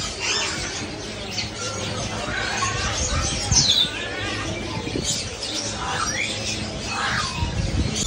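Chorus of many caged birds, parrots among them, chirping and squawking, with short calls scattered throughout. The loudest is a high, falling squawk about three and a half seconds in.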